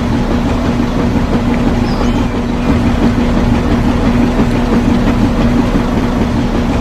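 A small motor running steadily at one constant pitch, with a noisy rush over it.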